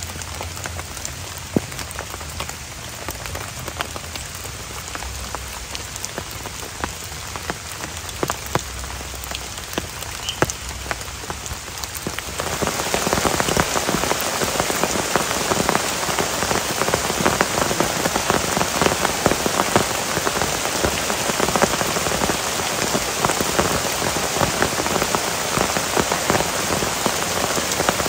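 Rain falling steadily on a tent and the forest around it, with single drops ticking close by. About twelve seconds in it becomes a louder, denser downpour.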